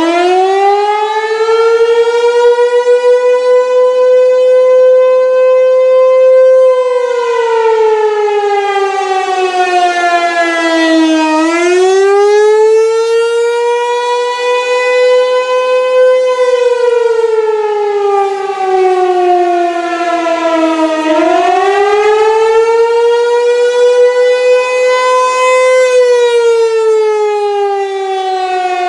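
Fulton T-128 fire siren sounding the attack signal. Its loud wailing tone climbs and holds, then sags as the power cuts, and winds back up about every ten seconds without ever dying away, with three rises and three falls.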